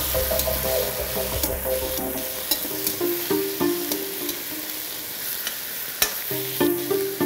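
A tomato and diced-pepper sauce sizzling in a steel wok while a metal slotted skimmer stirs it, scraping and clicking against the pan. Background music with sustained notes plays along.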